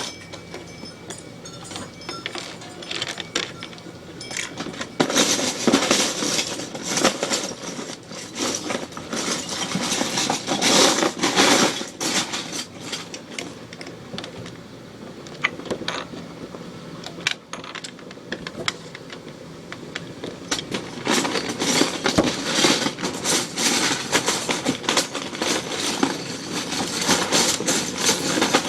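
Plastic Lego bricks clattering and rattling as hands rummage and sift through a pile of pieces, with denser bursts of clatter in several stretches.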